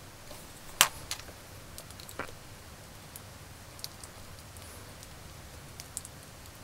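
Handling noise from hard plastic action-figure parts being fitted and pressed together by hand: a few scattered small clicks and taps, the sharpest about a second in.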